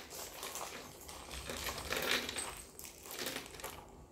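Handling of a quilted leather Tory Burch Kira Chevron shoulder bag as things are packed into it: light metallic clinking of its chain strap and rustling of the contents, in a few short irregular bursts.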